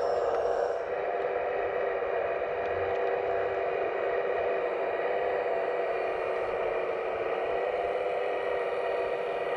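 Electric hydraulic pumps and motors of 1/15-scale RC construction machines whirring steadily, with light clatter and scraping; some high whine drops away about a second in.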